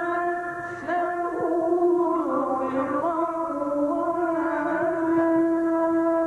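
Quran recitation: a man's voice chanting in long, held, melismatic notes, the pitch sliding and ornamented between phrases.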